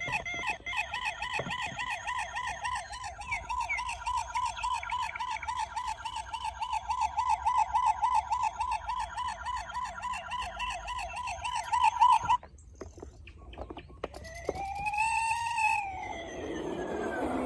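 Toy police car's electronic siren warbling rapidly and steadily, cutting off suddenly about twelve seconds in. A rooster crows once near the end.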